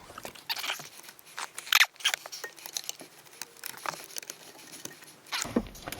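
Dashboard trim parts and wiring being handled: scattered light clicks and rustling, with a sharper click a little under two seconds in.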